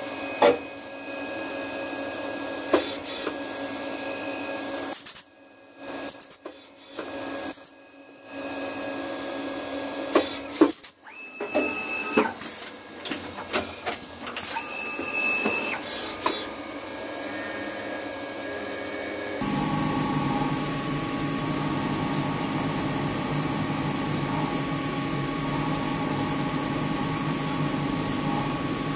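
Hurco 5-axis CNC milling machine cutting a small metal block with an end mill: a steady high spindle whine with sharp ticks and clicks from the cutter, broken by several abrupt cuts and gaps. A little over halfway through, the sound changes to a denser, steadier hum.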